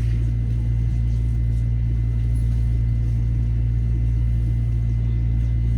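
Metro-North M7A electric multiple-unit train running between stations, heard from inside the car: a steady low rumble of wheels on rail and running gear.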